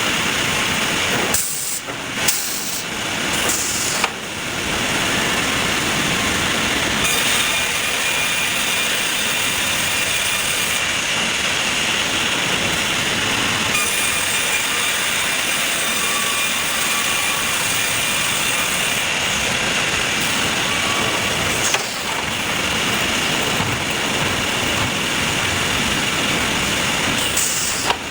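Sawmill machinery running with a steady, loud hissing noise and a faint high whine, broken briefly a couple of seconds in and again near the end.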